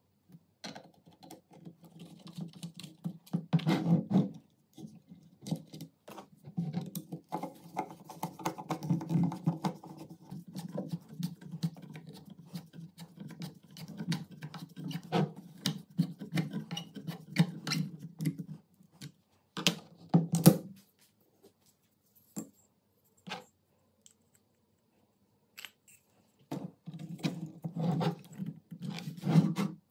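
MP5 polymer trigger housing and pistol grip being handled and fitted together with a screwdriver: irregular clicks, knocks and rubbing scrapes of plastic and metal parts, with a quiet pause about two-thirds through.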